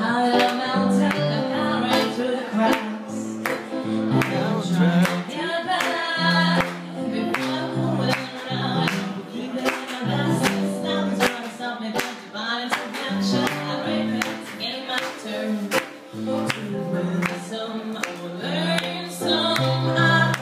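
Live performance: a woman singing into a microphone, accompanied by chords on an electronic keyboard, with a steady percussive beat underneath.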